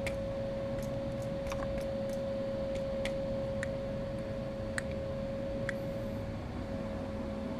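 Light, sharp clicks and ticks from handling the revolver and its warm spent .22 cases, coming irregularly about eight times over a steady hum.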